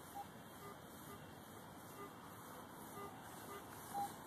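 Garrett AT Pro metal detector sounding a string of short beeps at a few different pitches as the search coil sweeps over a deep buried target, the loudest beep near the end.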